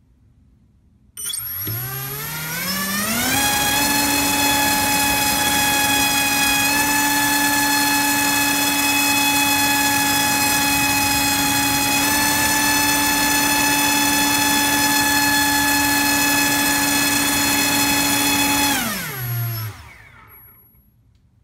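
Brushless motor driving a Dalprop 5045 three-blade propeller on a thrust stand, on a 4S battery: it spools up about a second in, rising in pitch for about two seconds, holds a steady whine and propeller buzz at high throttle, then winds down and stops near the end.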